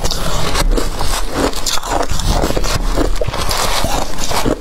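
A metal spoon scraping and breaking into a bowl of matcha-dusted ice, with ice crunching between the teeth, close to a clip-on microphone; a dense run of sharp cracks and crunches.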